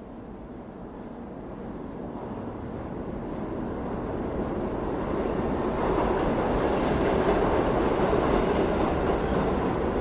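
A continuous rumble that grows steadily louder over about six seconds and then holds, like a large vehicle drawing near.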